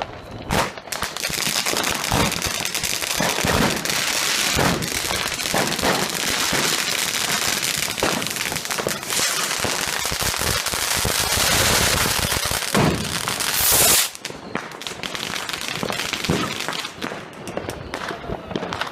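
Fireworks going off in a dense, continuous crackle of many rapid bangs, loudest just before they stop suddenly about fourteen seconds in. Scattered single bangs follow.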